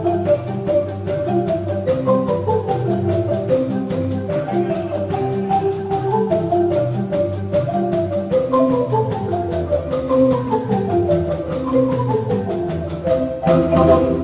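Ensemble of wooden marimbas with a drum kit playing a fast piece of quick repeated notes and falling runs. It closes with a loud final hit near the end.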